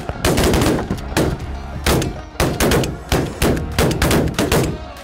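Rapid volley of shotgun blasts from several hunters shooting at snow geese, about ten shots in five seconds, each followed by a short ringing tail.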